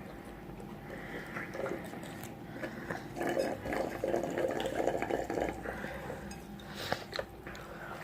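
Eating sounds: someone chewing and biting into fried food, busiest from about three seconds in until past five seconds, with a few sharp clicks.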